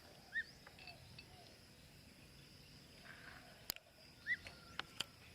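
Two short, faint chick peeps, about half a second in and again about four seconds in, over a steady high insect hum, with a few sharp clicks near the end.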